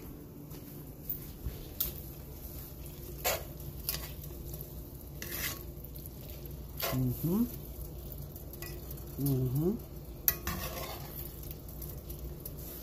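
Metal tongs clicking and scraping against a cast-iron skillet as lo mein noodles with beef and vegetables are tossed, over a light sizzle. Two short rising voice-like sounds come about seven and nine seconds in.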